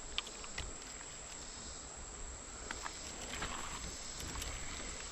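Steady background of insects chirping, with a few faint short clicks scattered through it.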